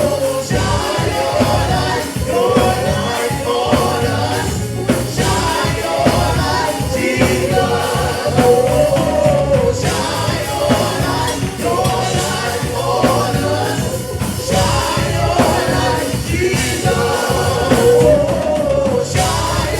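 Live gospel music: voices singing a melody over a band's bass and a steady beat.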